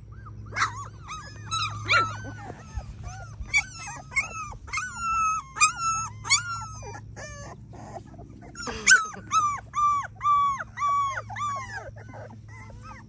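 A litter of three-week-old Labrador retriever puppies whining and crying, many short high-pitched cries overlapping, then a long run of evenly repeated cries in the second half. The puppies are crying for their absent mother.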